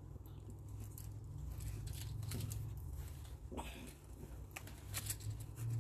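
Faint scattered clicks and rustles of a beaded metal necklace being handled and untangled, over a steady low hum.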